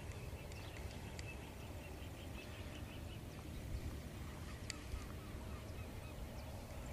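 Faint bird calls, including a quick run of short repeated chirps about two seconds in, over a steady low rumble of wind.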